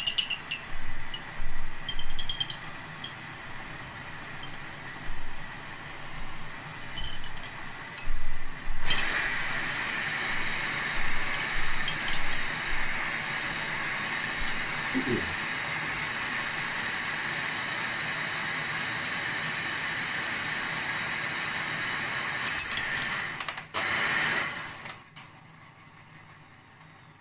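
Electric hand mixer whisking egg whites in a bowl: for the first several seconds the beaters clink and knock against the bowl, then from about nine seconds in the motor runs steadily for about fifteen seconds and stops suddenly.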